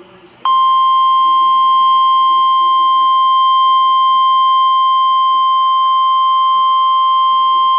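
Emergency alert attention tone, a single steady high-pitched beep that starts abruptly about half a second in and holds without a break. It is the NOAA Weather Radio 1,050 Hz warning alarm that comes before a severe thunderstorm warning message.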